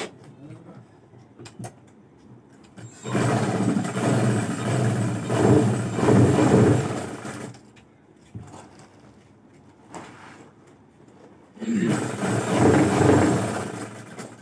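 Motor-driven sewing machine running in two spells of stitching, the first about four seconds long and the second about two, with a pause in between.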